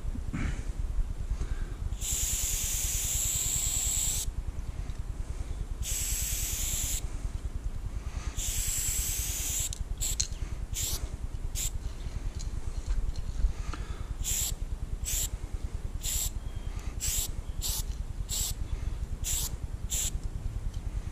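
Aerosol spray paint can hissing: three long sprays of one to two seconds each, then about a dozen short, quick bursts. A steady low rumble sits underneath.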